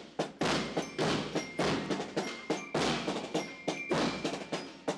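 A school marching band's drums beating a steady parade cadence, several strokes a second, with faint ringing tones above the beat.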